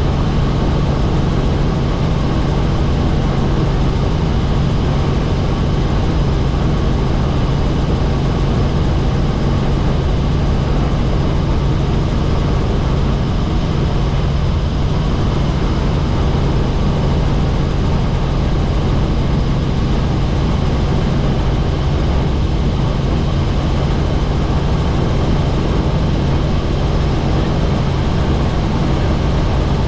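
Helicopter running steadily: a loud, even drone of engine and rotors with a low hum that does not change.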